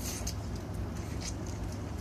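Faint clicks and rustles of crab being picked apart by hand, over a steady low hum.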